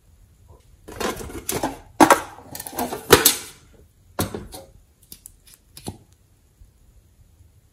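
Glossy slime crackling and clicking as it is worked by hand: a dense run of sticky crackles for a couple of seconds, then a few separate clicks.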